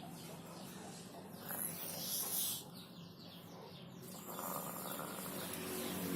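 A small child's snoring, noisy breaths, with a louder hissing breath about two seconds in, over a steady low hum.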